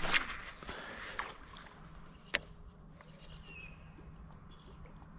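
A fishing rod being cast: a swish with the reel spool whirring as line pays out, the whir falling in pitch over about a second as the spool slows. About two seconds in comes a single sharp click, then a faint steady hum.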